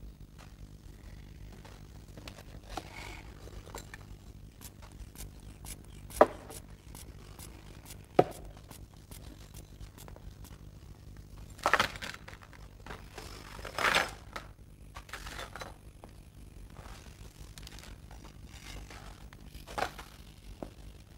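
Manual blood-pressure cuff in use: a rubber hand bulb squeezed and the cuff rustling, with scattered small clicks and two louder short scratchy rushes past the middle.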